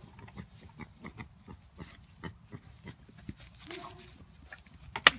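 Pig giving many short grunts, with one sharp knock near the end.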